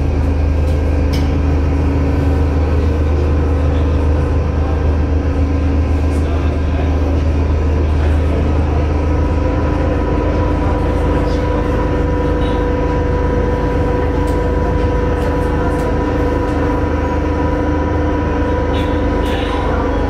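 Aerial cable car running, a steady low rumble with a constant mechanical hum, and a few faint clicks.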